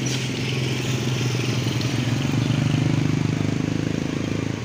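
Motorcycle engine running at low speed with a fast, even pulsing note that swells somewhat louder about two seconds in, then eases off near the end.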